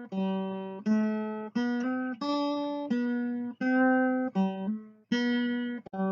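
Background music: a plucked string instrument playing a slow line of single notes, each one struck and left to ring and fade before the next.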